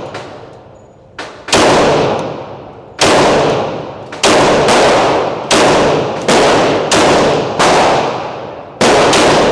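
Pistol shots fired one at a time at a steady, unhurried pace, about ten in all, roughly a second apart, each with a long echoing tail; one fainter shot about a second in.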